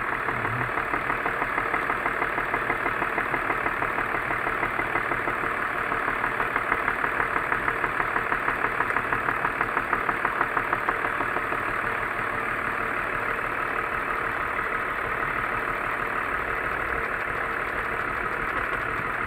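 BMW M54 inline-six idling with its sixth cylinder disconnected, with a fast, regular knock in the running. The knock is the one the owner is tracing to around the third cylinder.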